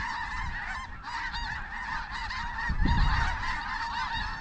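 A large flock of snow geese calling over the decoys, many short high calls overlapping into one continuous clamour. Wind rumbles on the microphone underneath, with a stronger gust about three seconds in.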